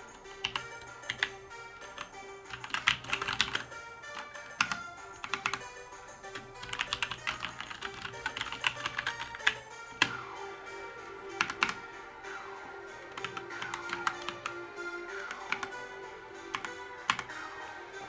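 Keychron C1 mechanical keyboard being typed on: quick bursts of key clicks that thin out in the last few seconds, with background music playing.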